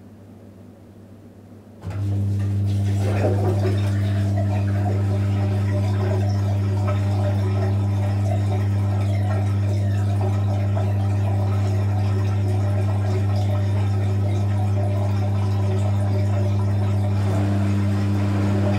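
Electrolux EWF 16589 W washing machine's drain pump switching on about two seconds in and running with a steady loud hum, water gurgling through it as it pumps the drum out.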